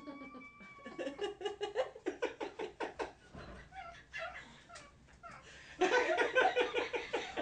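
Laughter: a long run of short, rhythmic ha-ha pulses, louder from about six seconds in.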